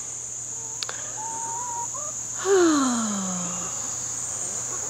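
A barred owl gives one loud call about two and a half seconds in that slides down in pitch over a little more than a second. Crickets and other insects keep up a steady high drone throughout.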